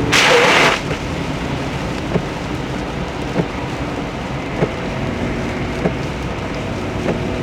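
Heavy rain on a moving car with steady road noise, heard from inside the cabin. A short, loud rush of noise comes at the very start, and soft ticks repeat about every second and a quarter.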